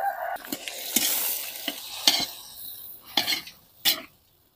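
A metal ladle stirring and scraping chicken pieces in a large wok as they sizzle in hot oil. The ladle scrapes sharply against the wok every half second to a second, and the sound drops away near the end.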